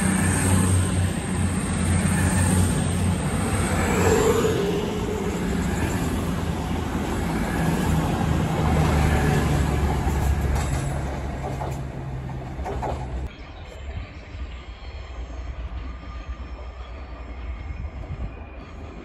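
East Midlands Railway Class 222 Meridian diesel multiple unit running past at close range. Its underfloor diesel engines give a deep drone over the rumble of the wheels on the rails. The sound drops away sharply about thirteen seconds in as the last carriage passes.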